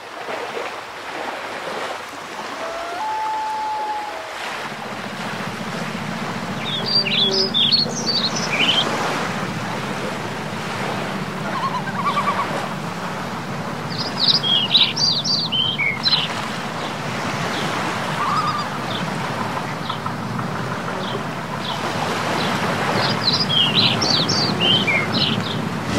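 Steady rushing noise, like surf or wheels on pavement, with a low hum coming in about four seconds in. A songbird gives a quick burst of high chirps three times, about eight seconds apart.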